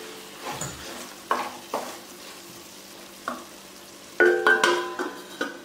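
A wooden spatula stirring and scraping prawn roast in a heavy black pot in several short strokes. About four seconds in, a steel plate is set down on the pot as a lid, clanking and ringing briefly; this is the loudest part.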